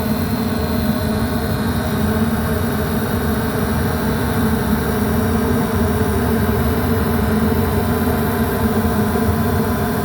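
Airtemp 90% gas furnace running with its draft inducer motor very noisy, over a steady hum with several fixed tones: the inducer motor is worn and needs replacing.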